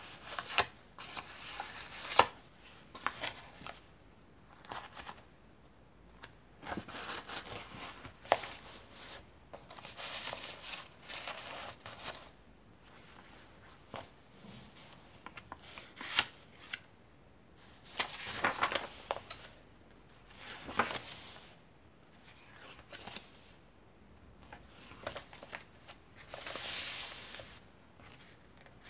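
Pages of a thick handmade junk journal of vintage paper and fabric being turned and handled by hand: irregular paper rustles and swishes, with sharp clicks here and there, the loudest about two seconds in, and a longer smooth swish near the end.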